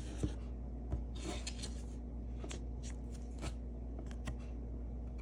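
Trading cards being handled: a few light clicks and taps, with a brief sliding, rustling sound of card against card about a second in.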